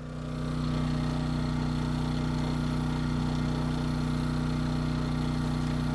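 A small engine running steadily at idle, an even low hum that does not change in pitch. It fades in during the first half second.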